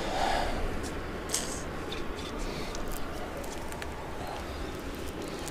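Faint steady outdoor background noise with a low rumble and scattered small clicks.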